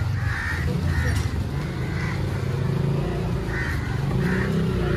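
A motor engine running steadily with a low rumble, with short high calls repeating over it.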